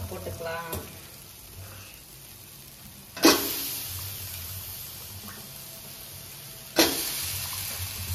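Two batches of chopped bottle gourd tipped into a hot steel pan of frying onion-tomato masala, about three seconds in and again near seven seconds. Each drop brings a sharp rush of sizzling that settles into a steady sizzle.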